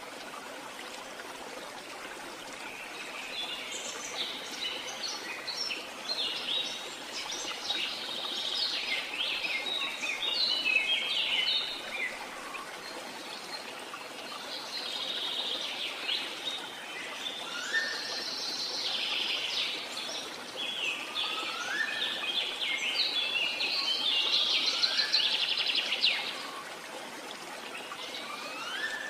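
Birds chirping and singing in a busy chorus of quick high notes, with a few short rising whistles, over a steady background hiss. The chorus comes in two long spells, the second the loudest.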